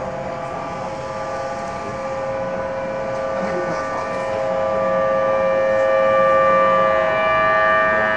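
Civil defense warning siren sounding a steady tone for a tsunami warning, several pitches held together, swelling louder after about halfway through.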